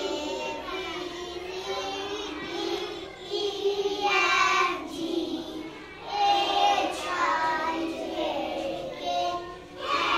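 A group of young children singing together in phrases, several voices at once, with louder phrases about four and six seconds in.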